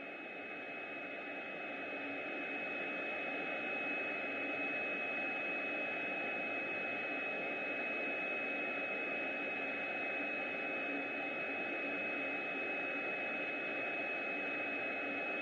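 Steady machine noise: an even hiss with a constant high-pitched whine, growing a little louder over the first few seconds.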